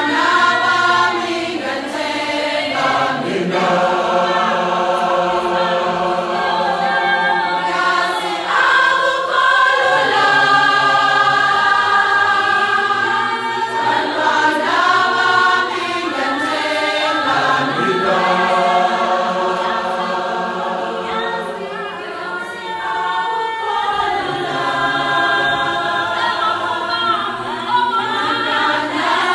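Large women's choir singing unaccompanied in close harmony, in long held chords with short breaks between phrases every few seconds.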